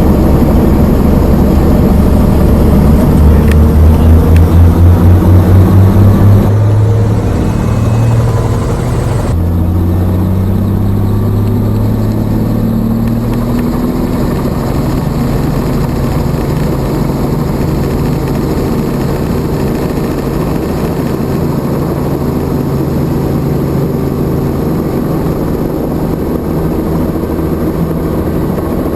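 Helicopter engine and rotor running loud and steady, with a throbbing rotor beat for a few seconds near the start.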